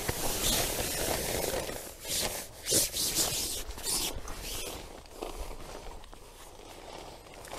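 Uneven rustling and scraping noises, like things being handled and rubbed, with a few short louder scrapes a couple of seconds in.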